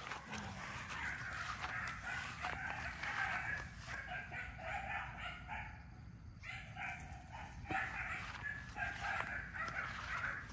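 XL bully puppies yipping and whining as they play loose, in a choppy run of high-pitched calls that eases off briefly about six seconds in.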